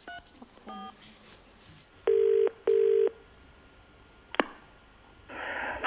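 Keypad beeps from a novelty cat-shaped telephone as the last digits are dialled, then one cycle of British double ringing tone (two short buzzes in quick succession) over the line. A sharp click follows as the line connects, then hiss on the line near the end.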